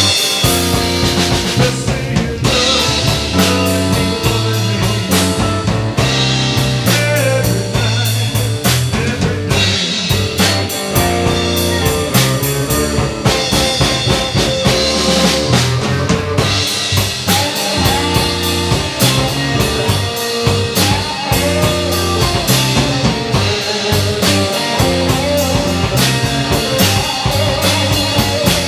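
Live blues band playing: drum kit keeping the beat under electric guitar and bass.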